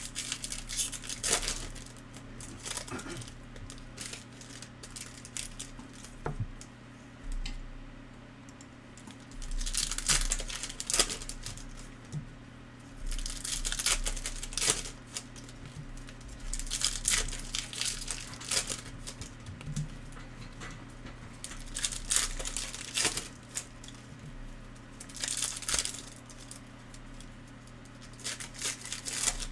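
Panini Elite basketball card packs being torn open and their foil wrappers crinkled, in short bursts every few seconds, over a low steady hum.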